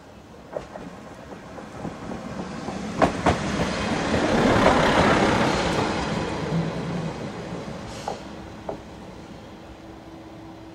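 Isumi 350 single-car diesel railcar running close past and slowing into the station, its wheels clacking over rail joints. The rumble builds to a peak about halfway through as the car passes, then fades to a steady hum as it rolls on at low speed.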